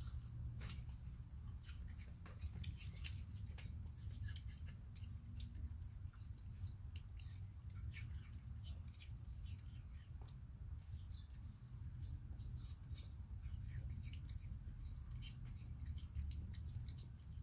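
Scattered small, sharp clicks and smacks of two macaques chewing soft fruit, with bananas being peeled by hand, over a low steady hum.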